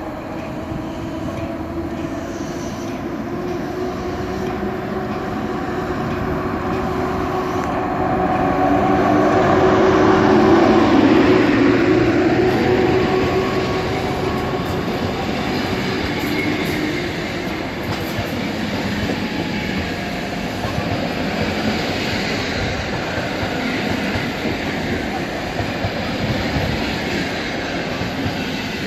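An electric train moving through a station, its motors humming steadily over the noise of wheels on rails. It grows louder to a peak about ten seconds in, then eases off slightly.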